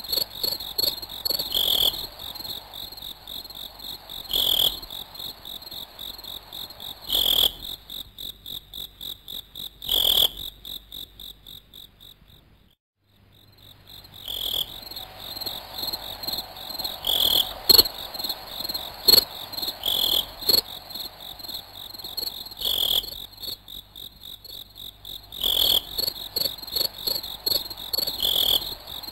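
Insects chirping steadily in a high pulsing trill, with a louder chirp about every three seconds. The sound fades out about twelve seconds in and returns a second or two later.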